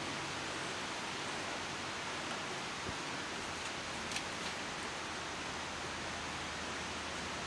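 Steady, even rushing noise of outdoor ambience, with a few faint ticks about four seconds in.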